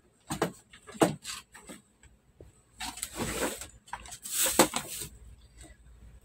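Handling noise at a workbench: a few light knocks, then two short scraping bursts about a second and a half apart as a roll of tape is handled.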